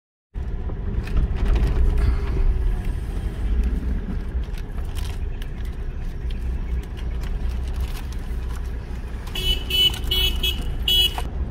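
Car driving down a rough forest road, heard from inside the cabin: a steady low rumble of engine and road noise. About nine seconds in, the car's horn sounds in a quick run of short beeps.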